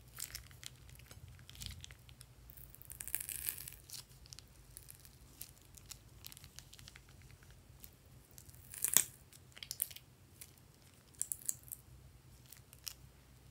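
A plastic piping bag crinkling and crackling as slime is squeezed out of it and piped into the bowl. The crackles are scattered, with a denser run about three seconds in and one sharp, louder click about nine seconds in.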